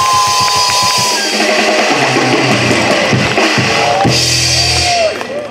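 Live band's drum kit struck in a fast, even rhythm over a steady high tone, then looser drum hits, with a low held note about four seconds in.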